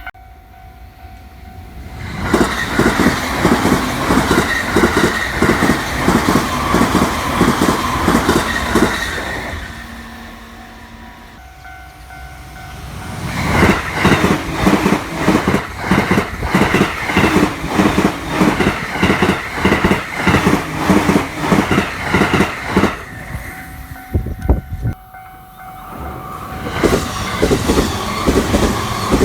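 Joban Line electric trains passing over a level crossing at high speed, one after another, with a rapid rhythmic clatter of wheels over the rail joints. Passes begin about two seconds in, about thirteen seconds in and near the end, and a level-crossing warning bell rings in the short lulls between them.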